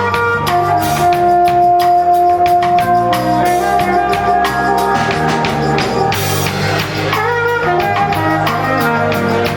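Live band music: a drum kit keeping a steady beat under a long held note that starts about a second in and lasts some three and a half seconds, with guitar and wind instruments in the mix.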